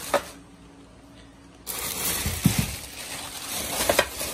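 Plastic packaging wrap crinkling and rustling as hands pull at wrapped motorcycle body panels. It is quiet at first, then steady crinkling with a few light knocks from about a second and a half in.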